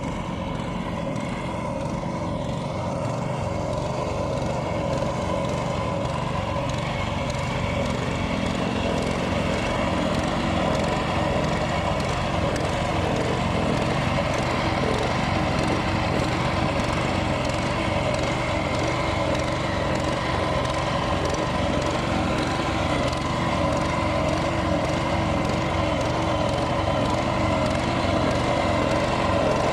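An engine running steadily without a break, gradually getting a little louder.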